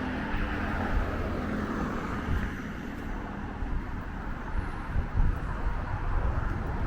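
Road traffic going by: a steady rumble of car engines and tyre noise.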